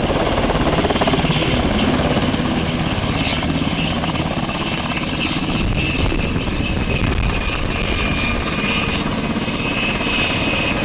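UH-60 Black Hawk helicopter landing close by and running on the ground: its twin turbines and rotor run loud and steady with a rapid blade chop. A high turbine whine comes up about halfway through.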